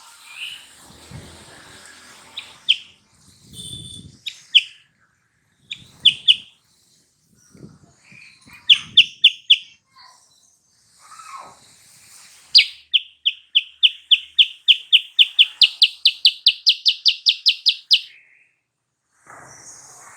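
Silver-eared mesia (kutilang sutra) singing: scattered short chirps, then a long rapid series of evenly repeated clear notes, about four or five a second, that climb a little in pitch and grow louder before stopping abruptly.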